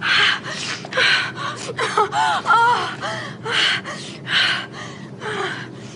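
A person gasping sharply over and over, about eight breathy gasps, with short rising-and-falling moans in the middle: the heaving and shuddering of a sneezing fit.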